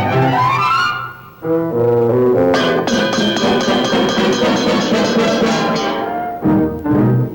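Orchestral cartoon score led by brass. A rising run tops out about a second in and drops away briefly. Short punchy notes follow, then a long held bright chord, and clipped accented hits return near the end.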